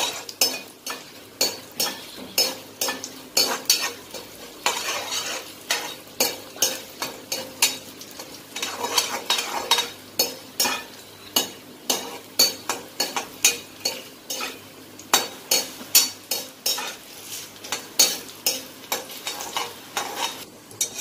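Steel slotted spoon scraping and tapping against a steel kadai, about two to three clicks a second, as chana dal and urad dal are stirred and roasted in sizzling oil until golden.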